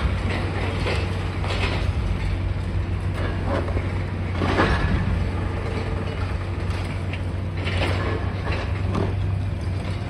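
High-reach demolition excavator at work: a steady low engine drone under irregular cracking and crunching as the boom's attachment breaks into concrete and metal, the loudest crunch about four and a half seconds in.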